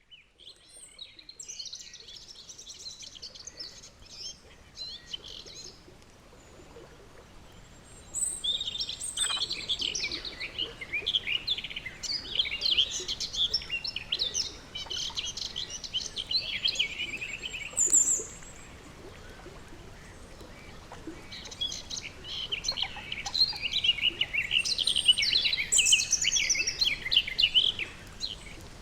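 Pond ambience: three long bouts of rapid, high-pitched chirping calls over a faint steady background hiss.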